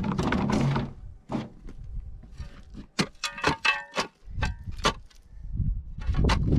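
Steel spade scraping and chopping into loose, broken shale, with a run of sharp clinks and knocks of rock pieces about three seconds in and another scrape of the blade through the shale near the end.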